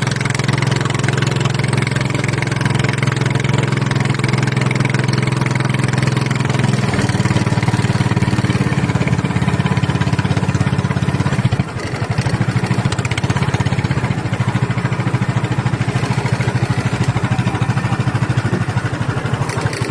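Small engine running steadily, its note shifting about seven seconds in and dipping briefly near twelve seconds.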